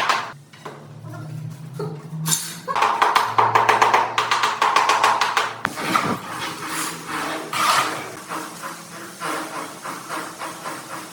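Rapid repeated tapping in bursts, loudest a couple of seconds in, over background music.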